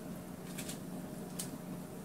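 A few short, faint rustles of parchment paper as hands press a jackfruit patty flat on a lined cookie sheet, over a steady low hum.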